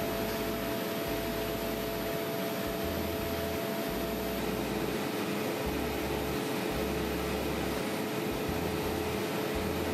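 Bench polishing machine running with a watch case part held against its spinning buffing wheel: a steady whir with a constant hum underneath.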